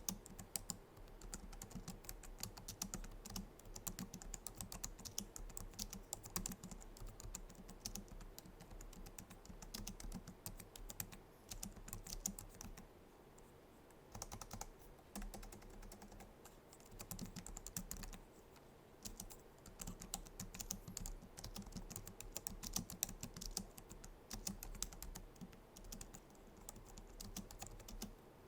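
Continuous typing on a Logitech MX Keys keyboard: rapid, soft clicks of its low-profile scissor-switch keys, with a brief pause a little before halfway and another soon after.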